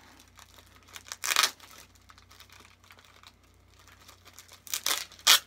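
Thin clear plastic wrapping crinkling and tearing as it is pulled off a small pin by hand. A loud rip comes about a second in and two more come near the end, with faint rustling between.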